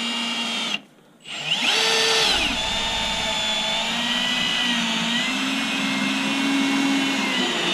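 Cordless drill driving a screw into a wooden frame: it runs briefly, stops just under a second in, then revs up again and runs steadily under load for about six seconds, its motor whine wavering a little in pitch.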